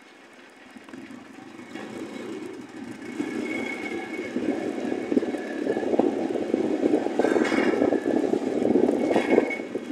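Running and road noise of a moving motor vehicle, heard from on board. It grows louder over the first three seconds and then stays steady and rough.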